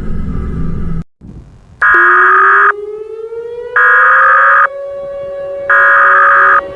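Dark background music cuts off about a second in. Then come three loud, one-second bursts of Emergency Alert System SAME header data tones, evenly spaced, which mark the start of an emergency alert. Beneath them a siren winds up in pitch and then holds steady.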